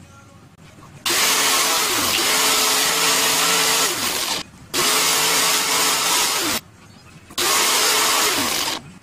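Angle grinder with a sanding disc, mounted face-up as a bench disc sander, switched on in three short runs while a kitchen knife blade is ground against the disc. The runs last about three, two and one and a half seconds. Each starts suddenly with a steady motor whine over a hiss, and its pitch sags just before it cuts off.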